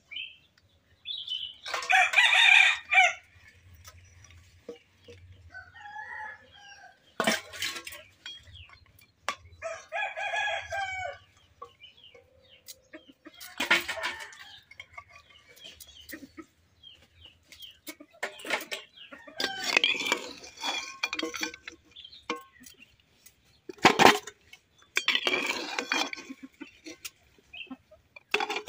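A rooster crowing about four times, each crow a second or two long, with sharp clinks and knocks of cooking utensils in between.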